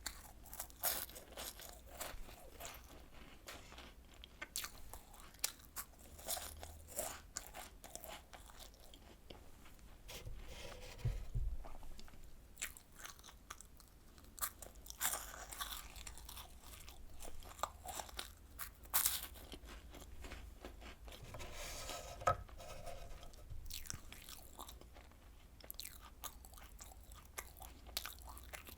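Close-miked crunching and chewing of Home Run Ball choco-filled puff snacks, crisped further in an air fryer. Irregular crisp crackles from bite after bite, with a few louder crunches.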